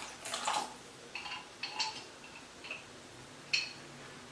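Thick pav bhaji vegetable mash simmering in the pan, with a few faint, separate pops as bubbles burst at the surface.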